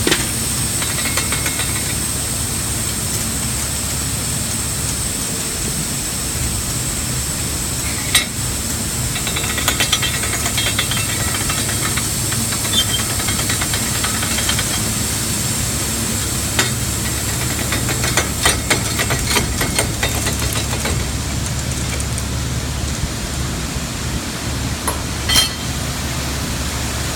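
Corn kernels pouring from a semi trailer's hopper gate onto a grain dump pit grate: a steady hiss over a low steady hum, with scattered ticks and a sharper click near the end.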